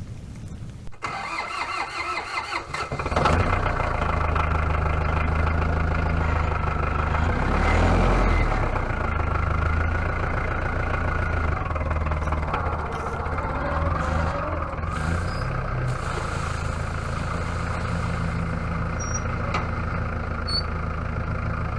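Tractor engine cranking, catching about three seconds in, then running steadily at idle, with a brief swell in speed a few seconds after it starts.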